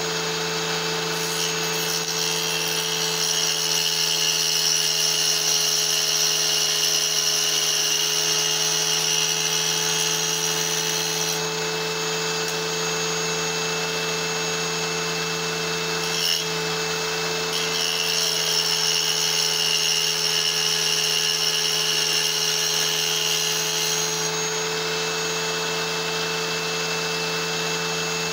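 Electric tile saw running steadily, its motor humming, while a small piece of petrified wood is held against the spinning blade. A high grinding whine comes in as the stone bites: for most of the first ten seconds, and again for several seconds past the middle.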